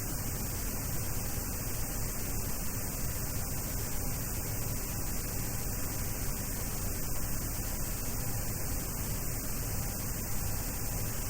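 Steady hiss of static with a low hum underneath, from an aircraft's interphone or headset audio feed during pushback, with no change throughout.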